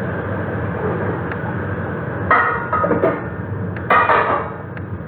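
Metal kitchen utensils clinking and knocking twice, about two and a half and four seconds in, against a steady background hiss.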